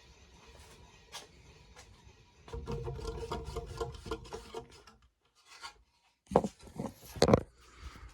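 Rubbing and knocking handling noises, with a few sharp thumps near the end. A buzzing hum with a rattle runs for a couple of seconds in the middle.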